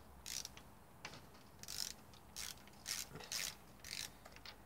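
Ratchet handle on a 16 mm spark plug socket, clicking in short bursts, about seven in all, as it is swung back and forth to unscrew a spark plug from a VW 1.2 three-cylinder engine.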